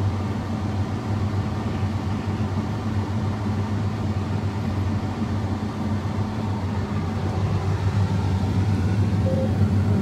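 John Deere X9 combine harvester running while cutting wheat, heard from inside the cab: a steady low machinery drone, a little louder in the last few seconds.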